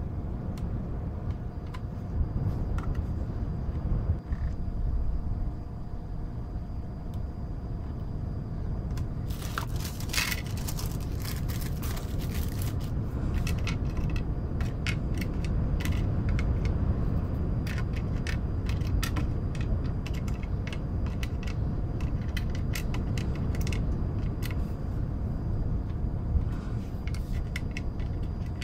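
Jigsaw puzzle pieces being sorted and tapped by hand, many small clicks and scrapes, with a dense flurry of them about ten seconds in. Under them runs a steady layer of wind and white noise.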